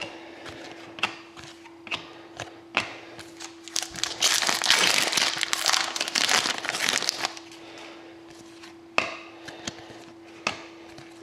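Foil wrapper of an Upper Deck Series 1 hockey card pack being torn open and crinkled for about three seconds in the middle, between scattered taps and clicks of cards being handled. A faint steady hum runs underneath.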